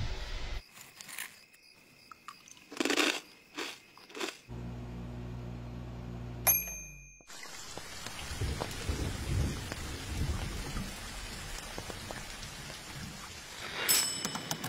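A string of short edited sounds, including a brief low steady hum, then a steady rain-like hiss with low rumbles through the second half, with a few sharper sounds near the end.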